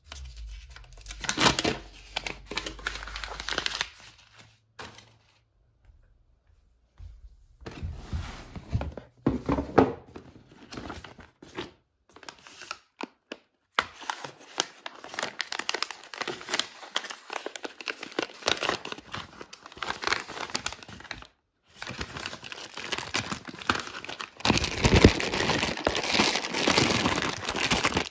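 Paper crinkling and tearing as a pink paper advent-calendar packet tied with string is handled and unwrapped. It comes in irregular bursts with short pauses and is loudest near the end.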